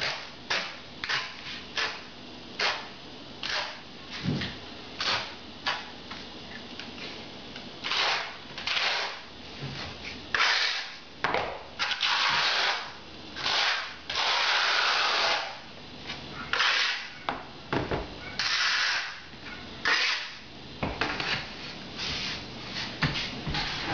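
Notched steel trowel scraping through tile adhesive on the back of a tile. It starts with a quick run of short scrapes, then moves to longer sweeping strokes as the adhesive is combed into ridges.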